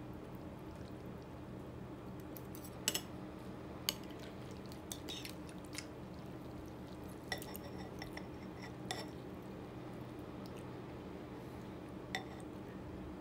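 Metal spoon and metal chopsticks clinking against a ceramic bowl while stirring and lifting noodles: about half a dozen sharp, scattered clinks, the loudest about three and four seconds in, over a steady low hum.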